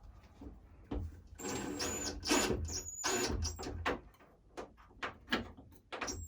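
Small cordless power screwdriver or drill running in short bursts with a high whine, turning the shower-head wall-mount screws, between knocks and clatter of handling the parts.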